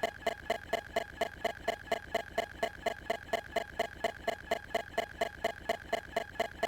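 Fast, even mechanical ticking, about four to five ticks a second, over a constant high-pitched tone.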